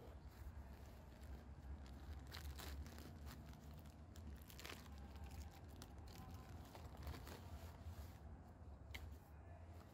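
Rustling of backpack nylon and crinkling of a plastic bag as gear is handled and pulled from the pack, with a few sharp crackles scattered through, over a faint steady low rumble.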